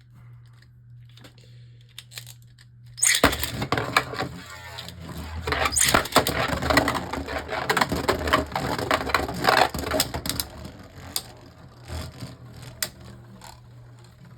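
Plastic Beyblade spinning tops clattering and knocking in a plastic stadium, starting suddenly about three seconds in with a dense run of clicks and thinning to scattered clicks near the end.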